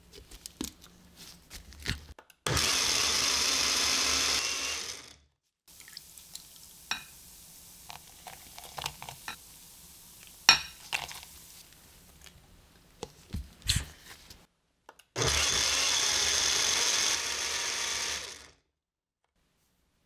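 Countertop blender with a glass jar running twice, for about two and a half seconds and then about three seconds, grinding cold rice, ginger, fish sauce and soaked dried chillies into a kimchi seasoning paste. Sharp clicks and knocks of the jar and lid being handled come before and between the runs.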